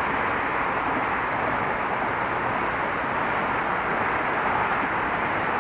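Steady, even rush of distant road traffic, with no single vehicle standing out.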